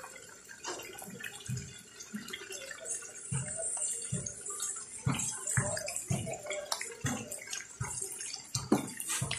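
Chorizo sausages frying in oil in a steel wok: a steady sizzle with irregular pops and crackles of spattering fat.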